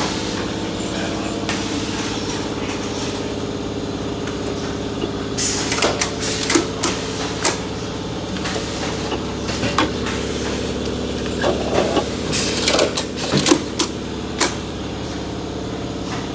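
Brewery can-packaging line machinery running with a steady hum, with a run of sharp clicks and clatter from its mechanisms starting about five seconds in and stopping shortly before the end.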